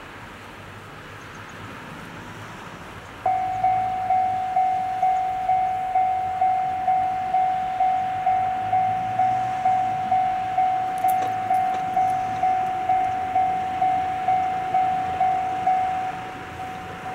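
Electronic railway level-crossing warning bell starting abruptly about three seconds in, a steady single-pitch ding repeating about twice a second, the signal that a train is approaching. It turns quieter near the end.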